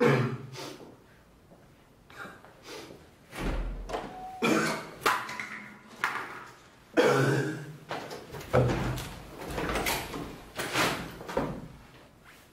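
A man coughing and gagging in several loud, sudden bursts a few seconds apart, as if about to be sick, with a dull thump about three and a half seconds in.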